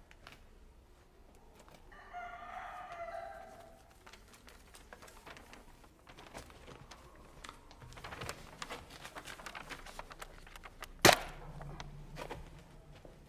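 A rooster crows once, about two seconds in. Scattered light clicks follow, then a single sharp thud about eleven seconds in, after which a low steady hum sets in.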